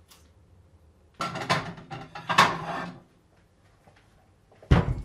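Ceramic plates clattering against each other for about two seconds as a plate is taken out of a kitchen cupboard. A single dull thump comes near the end.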